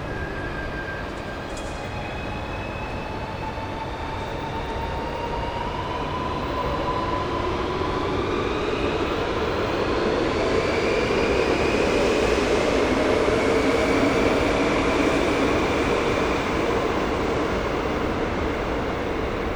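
A train in a station, with rail noise and several motor whines slowly rising in pitch as it gathers speed. It grows louder toward the middle and eases off slightly near the end.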